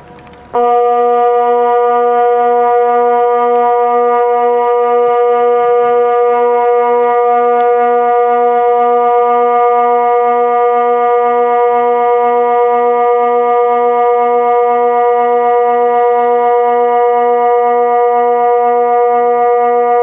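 Kockum Sonics Delta 4 electronic siren sounding the Swiss water alarm (Wasseralarm): one steady low tone that switches on suddenly about half a second in and holds at one pitch without rising or falling. The water alarm is a series of such 20-second low continuous tones.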